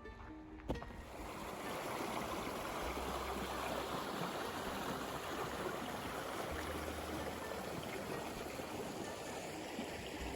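Steady rush of running water, like a stream, starting after a sharp click just under a second in.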